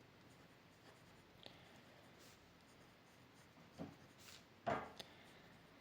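Faint pen-on-paper writing, light scratching strokes, with a couple of short louder handling sounds near the end.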